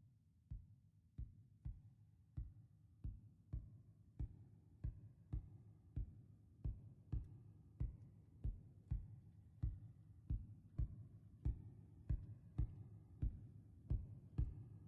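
Background music intro: a soft, steady low kick beat about one and a half times a second, like a heartbeat, with faint held instrument tones slowly building beneath it.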